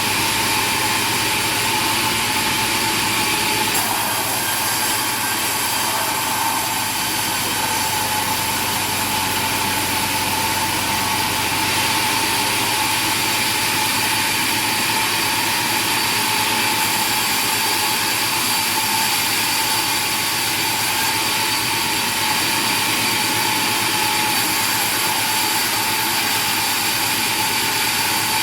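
An engine-driven machine running steadily, a continuous mechanical noise with a constant whine that barely changes.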